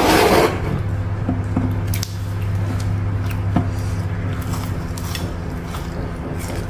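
Chewing and fingers handling crispy batter-fried mushrooms close to a clip-on mic, with a short burst of crunching at the start and small scattered clicks after. A steady low hum runs underneath.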